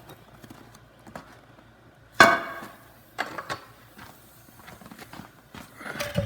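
Hammer striking the hot steel cable-tool bit at the anvil: one loud ringing metal blow about two seconds in, then a few lighter knocks and a clatter near the end.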